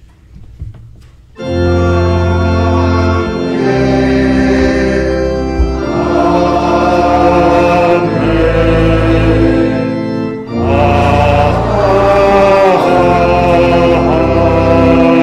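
Organ playing held chords over steady bass notes, changing every couple of seconds, starting suddenly about a second and a half in.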